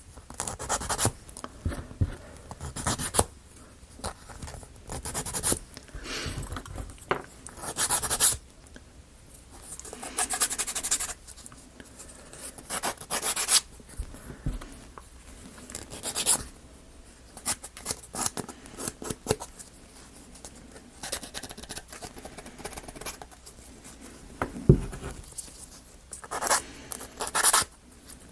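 Thin plywood model parts being handled, scraped and pressed together, in a string of short, irregular rubbing and scratching bursts.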